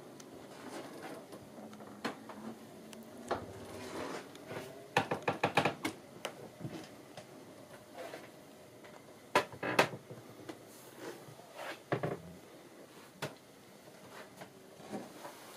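Scattered clicks and knocks in a small wooden cabin, with a quick run of clicks about five seconds in and a few louder knocks later. This is handling noise from a handheld camera moving through the cabin.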